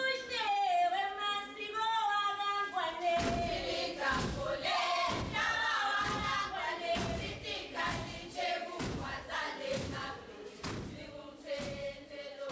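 A group of voices singing together. About three seconds in, a steady heavy thumping beat joins them, about one and a half beats a second.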